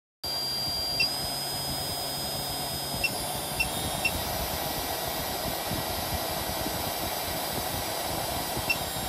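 Small DC spindle motor running steadily on a bench power supply, a continuous mechanical whir with a thin high whine. A few short high beeps come from the power supply as its controls are worked, about a second in, around three and four seconds in, and again near the end.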